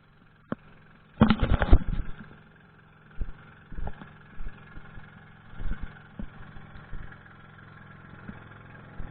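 Steady low engine hum, with several short dull thumps and a loud burst of noise about a second in.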